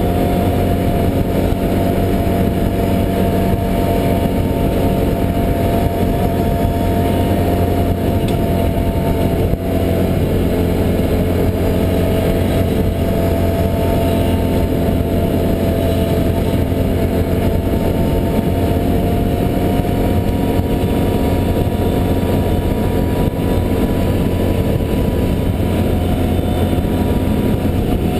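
Can-Am Outlander 1000 ATV's V-twin engine running under way at a steady cruising pace, a constant drone that holds a nearly even pitch.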